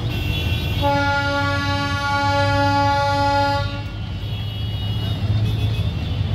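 Diesel locomotive's horn sounding one long steady blast of about three seconds, starting about a second in, over the locomotive's low engine rumble as the train passes.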